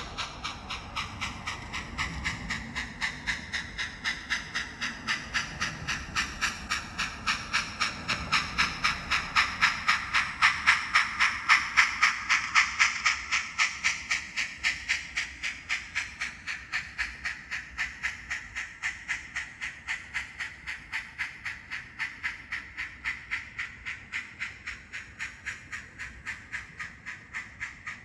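Sound decoder in an N scale Bachmann K4 steam locomotive playing a steady, even steam chuff through its small speaker as the model runs. It grows louder toward a peak about halfway through, then fades as the train moves past and away.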